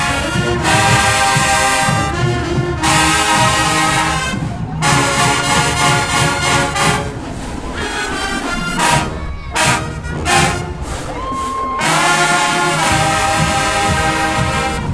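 Marching band brass section (trumpets and trombones) playing loud held chords, broken off by short cut-offs every couple of seconds, with a rising swell into a long chord near the end.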